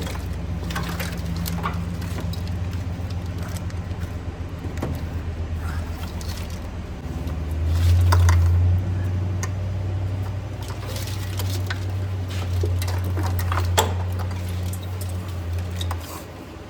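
A steady low mechanical drone that swells about eight seconds in and stops shortly before the end, with light clicks and rattles of a wiring harness and its connectors being pushed through.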